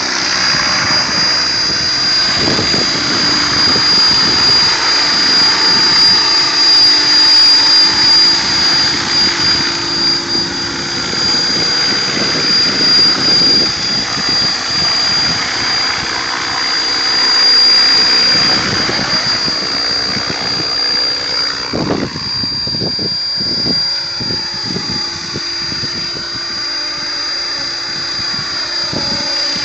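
Mikado Logo 600 electric radio-controlled helicopter in flight: a steady high-pitched whine over the rushing of the rotor blades, swelling and fading as it flies past.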